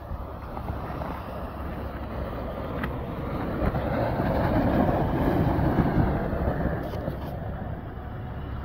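Toyota SW4 4x4 driving through snow past the microphone: engine and tyres churning snow, growing louder as it passes about four to six seconds in, then fading as it pulls away.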